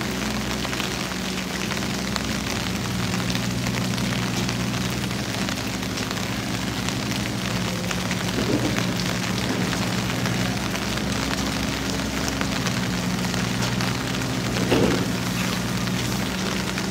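Steady rain falling, an even hiss with a low steady hum beneath it. A short louder sound stands out twice, about 8 and 15 seconds in.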